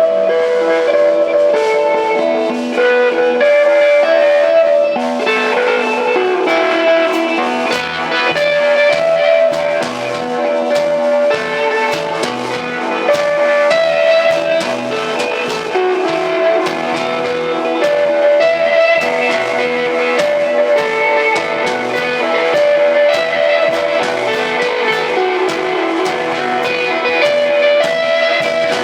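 Instrumental desert rock played live by a band: an electric guitar plays a ringing melodic line over bass and drums, with cymbal hits throughout. The bass fills out the low end from about seven seconds in.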